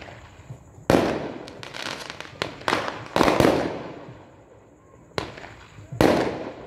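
Aerial fireworks shells bursting: a sharp bang about a second in, two more close together around three seconds in, a smaller one after five seconds and another big one at six seconds, each trailing off in a long echoing rumble, with smaller pops and crackles between.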